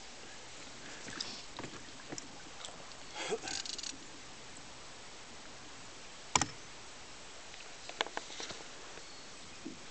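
Small knocks and clicks in a canoe over a steady hiss. There is a cluster of light knocks about three seconds in, one sharp knock a little after six seconds, and a few clicks around eight seconds.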